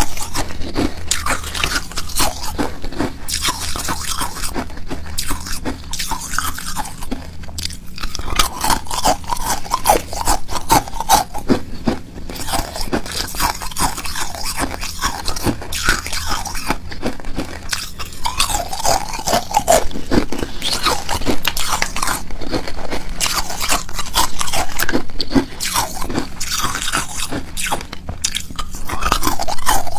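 Hard hollow cylindrical ice cubes being bitten and chewed right at a clip-on microphone: a continuous run of sharp crunches and cracks.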